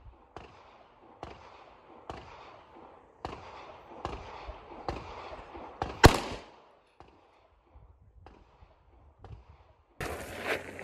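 Pistol shots on a shooting range, about a dozen at roughly one a second, each trailing off over a fraction of a second; one shot about six seconds in is much louder than the rest. Near the end the shots give way abruptly to a steady background noise with a low hum.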